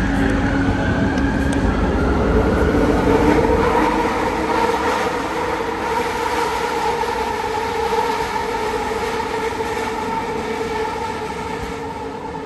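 ART200 metro train running on the Kelana Jaya Line: a steady whine from its linear induction motors over wheel and rail noise. The deep rumble drops away about four seconds in, and the sound slowly eases toward the end.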